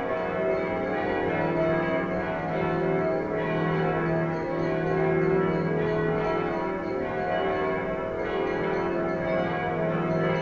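Church tower bells ringing a festive peal: several bells sound together without pause, their overlapping notes shifting every second or two.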